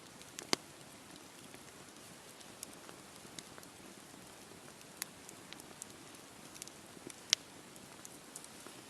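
Wood campfire burning: a soft steady hiss with irregular sharp crackles and pops, two of them louder, about half a second in and near the end.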